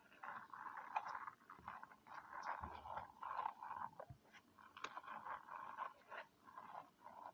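Soft, irregular rustling and crinkling with scattered light clicks and scrapes as small fidget toys are picked through and handled.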